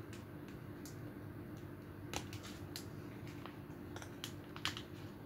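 Faint, sharp clicks and scrapes of fingers and a thin metal tool prying a laptop battery's wire connector out of its motherboard socket, the sharpest click about four and a half seconds in, over a low steady hum.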